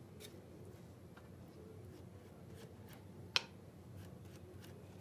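Faint handling sounds of a silicone pastry brush spreading egg wash over soft bread dough, with a few light clicks and one sharp click about three and a half seconds in.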